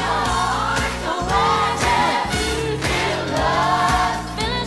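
Gospel choir and lead voices singing with a pop-gospel band. Several sung lines waver with vibrato over a steady bass and drum beat.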